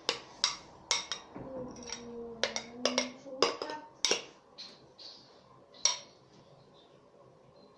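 A spoon clinking against a bowl while slime ingredients are stirred: a quick, irregular series of sharp ringing taps that thins out and stops about six seconds in.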